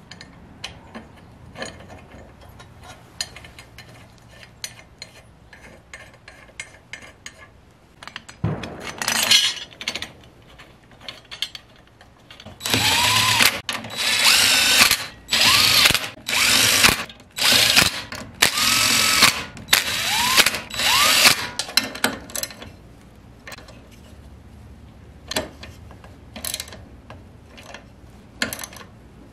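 Cordless power driver spinning a socket to run down the cylinder head bolts on a Briggs & Stratton flathead engine, in about seven short bursts, several with a rising whine as the motor spins up. Before the bursts come quiet clicks of the bolts being set by hand, and near the end the light clicking of a hand ratchet snugging the bolts.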